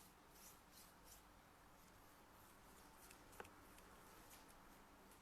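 Faint, soft swishes of a flat paintbrush stroking paint across bare wood, with a small tick a little after three seconds.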